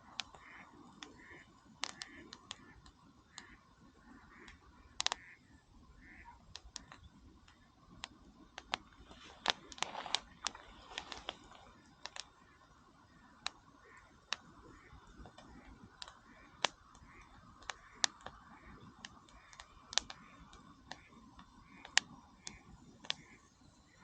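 Wood campfire crackling, with sharp irregular pops of burning wood, some much louder than others.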